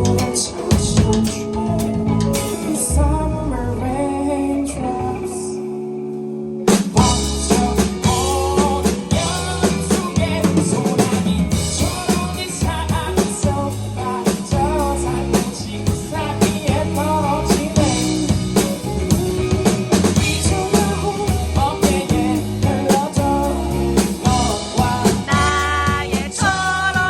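Live band music: a singer over drum kit and bass with a steady beat. About six seconds in the band thins to a held chord for a moment, then the full kit comes crashing back in.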